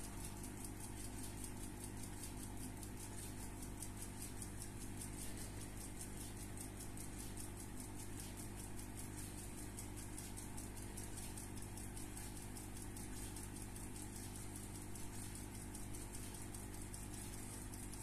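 Mechanical alarm wristwatch ticking: a rapid, even run of small high ticks, several a second, over a steady low hum.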